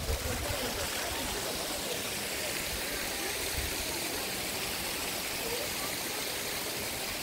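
Steady, even rush of running water from a mountain stream or waterfall.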